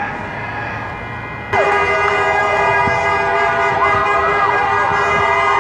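Street traffic, then about a second and a half in, a sudden jump to a vehicle horn held in one long steady blast, with a marching crowd shouting over it.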